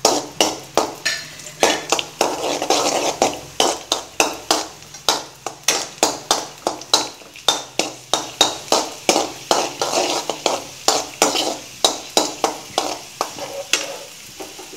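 A metal ladle scrapes and knocks against an aluminium kadai about three times a second while stirring chopped cashews frying in ghee, over a light sizzle. The stirring eases off near the end.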